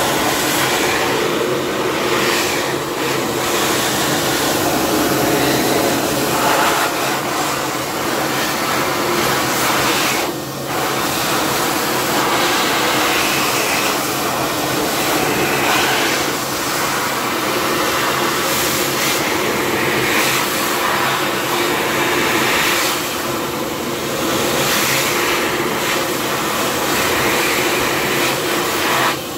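AIR-WOLF M 426 automatic hand dryer blowing steadily with hands under its outlet: a loud, even rush of air over a low hum, dipping briefly about ten seconds in.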